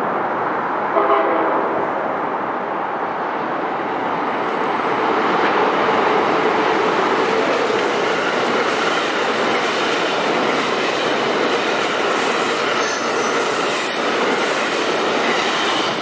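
Amtrak Northeast Regional passenger train passing close by: a short horn blast about a second in, then the steady rush and clatter of the cars rolling along the rails.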